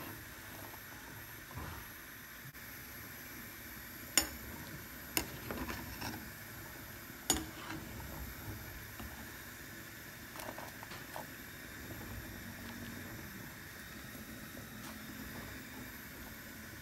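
Pot of chickpeas at a rolling boil, bubbling steadily, while a metal spoon stirs them, with a few sharp clinks of the spoon against the pot in the first half and lighter knocks after.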